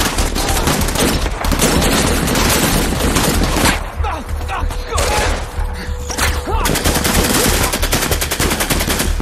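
Rifle gunfire in a firefight: a dense fusillade of shots and automatic bursts. The firing eases briefly about four seconds in, then comes back as a fast burst of automatic fire near the end.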